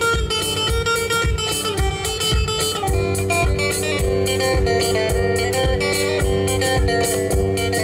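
A live band plays, with electric guitars over a drum kit keeping a steady beat.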